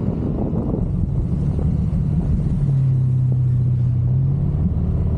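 Yamaha NMAX scooter's single-cylinder engine running while riding, with the rumble of wind and road under it; a steady engine tone holds for about two seconds in the middle.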